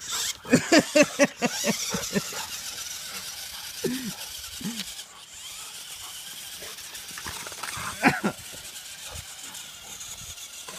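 A dog yipping in excitement while it plays with a remote-control truck: a quick run of short yelps in the first two seconds, two falling whines about four seconds in, and another yelp near eight seconds.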